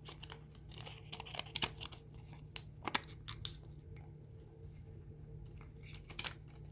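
A 120 film roll being threaded by hand onto a take-up spool: the paper backing rustles and crinkles, with scattered sharp clicks and taps, the loudest about a second and a half in, around three seconds in and near the end.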